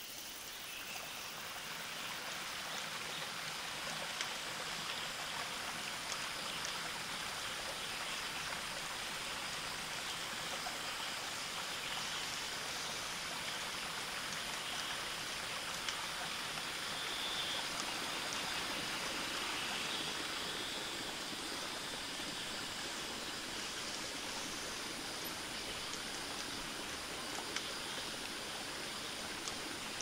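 A forest stream running over rocks: a steady rush of flowing water, with a few faint clicks.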